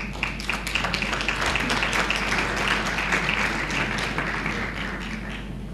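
Audience applauding, a dense patter of many hands clapping that starts suddenly and dies away after about five and a half seconds.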